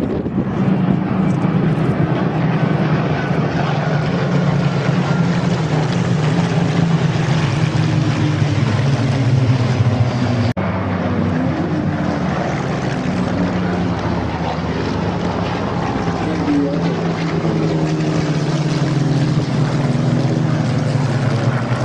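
Spitfires' Rolls-Royce V12 piston engines droning overhead in formation, the pitch slowly falling as the aircraft pass. An abrupt break about ten seconds in, then more engine drone with falling pitch as another Spitfire passes.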